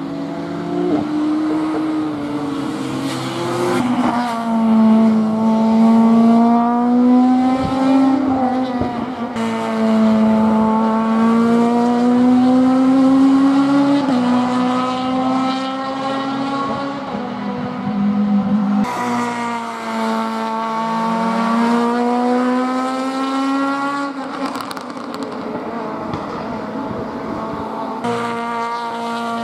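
A race car's engine accelerating hard and changing up through the gears: its pitch climbs for several seconds, then drops sharply at each shift, about every four to five seconds.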